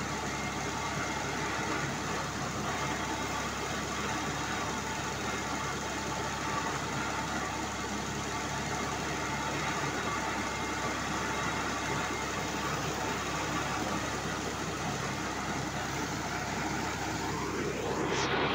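An engine running steadily at a constant speed, an even mechanical drone with no change in pace.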